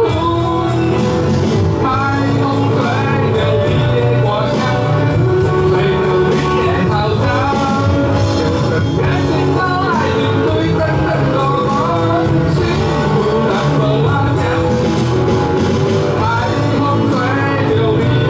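Live rock band playing a song: a man sings lead over electric guitars, bass guitar and an electronic drum kit.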